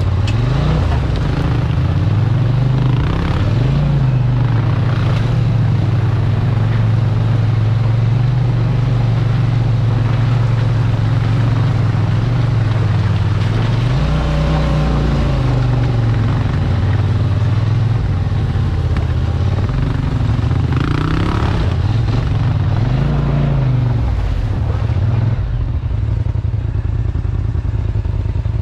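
Off-road quad or side-by-side engine running under way, its note climbing and falling back a few times as the throttle is worked, over a steady rushing ride noise.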